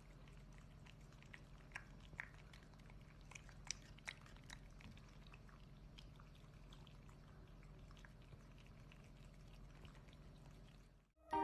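Near silence with faint scattered clicks and tiny squeaks from kittens, over a low steady hum.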